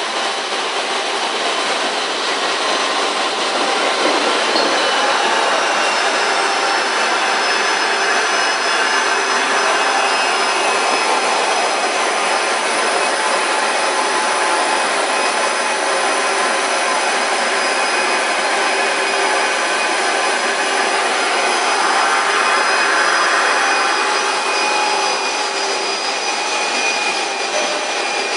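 Industrial textile finishing machinery running steadily: a continuous mechanical hum with several fixed whining tones, swelling slightly about three-quarters of the way through.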